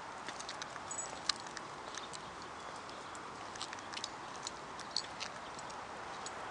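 Steady outdoor background rush of city noise, with light irregular clicks and ticks scattered through it, the sharpest about a second in.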